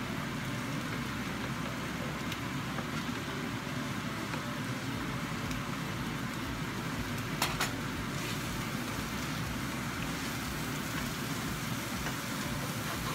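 Carrots, broccoli and celery sizzling steadily as they stir-fry in a hot frying pan, with one sharp click about halfway through.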